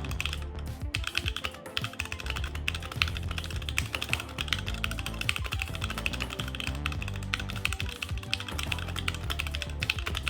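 Fast typing on a HyperX Alloy Origins mechanical keyboard with HyperX Red linear switches: a rapid run of keystrokes without a click, a muffled rather than sharp clack, over steady background music.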